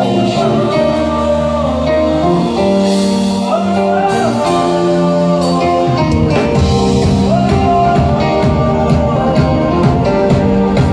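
Live band playing on stage during a rehearsal, with singing, guitar and a steady beat.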